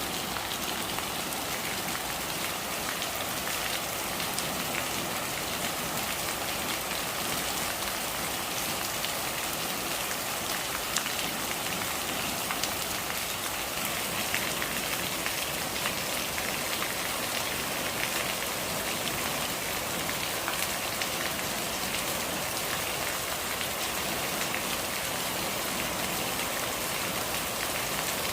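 Steady rain falling and pattering on a surface, an even hiss with scattered sharper drops.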